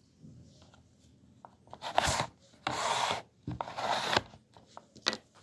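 Slide eraser of a children's magnetic drawing board being pushed along under the screen, wiping the drawing: a rasping rub in three strokes of about half a second each, then a brief fourth near the end.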